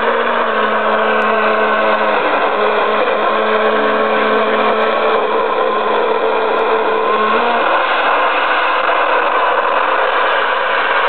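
Steady hiss of FM radio static from a portable radio receiver, with a low steady hum under it that stops about seven seconds in.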